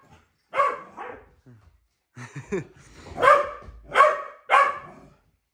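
Presa Canario puppy barking in play, about six short barks with a brief pause near two seconds in.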